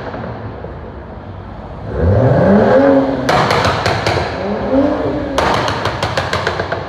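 BMW M car's twin-turbo straight-six exhaust revving up twice, the pitch rising each time, with each rev followed by a rapid string of sharp pops and crackles.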